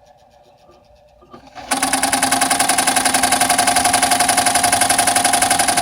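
New Home 702 sewing machine running quietly at first. About a second and a half in it speeds up into a loud, rapid, evenly repeating banging: the abnormal banging noise the owner is showing.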